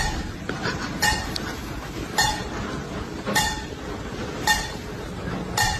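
A short, high ringing ding repeating evenly about once a second, six times, over a steady background hiss.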